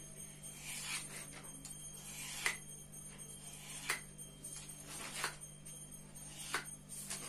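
Kitchen knife cutting a thin sheet of rolled dough into strips on a wooden rolling board, a sharp tap each time the blade meets the board, roughly once a second.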